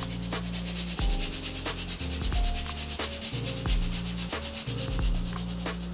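A shoe-cleaning brush scrubbing the clear rubber outsole of a Nike Air Force 1 sneaker in quick back-and-forth strokes, a rapid rhythmic rasping.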